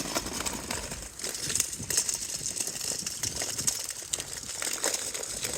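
Footsteps crunching on a path while walking, a run of irregular short crackles and clicks.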